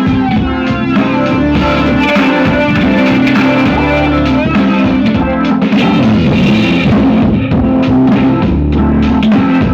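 A song played loud through an MV Collection 5200 300-watt amplifier and speaker in a sound test, with heavy bass under the melody.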